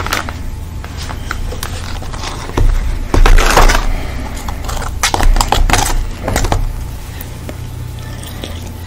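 Crinkling and rustling of paper fast-food packaging and curly fries being handled, with clicks and a few dull bumps, loudest about three seconds in and again around five to six seconds.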